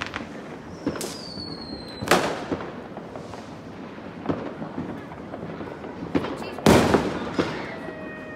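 Fireworks going off: a whistling rocket falling in pitch about a second in, a sharp bang about two seconds in, smaller pops in between, and the loudest bang a little before the end.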